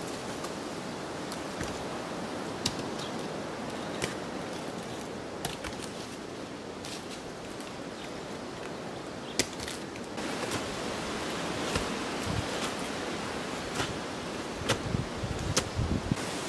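Sharp clicks and knocks of volcanic stones striking one another, every second or two, as they are lifted and set in place. Under them runs a steady rustling hiss of wind in the leaves.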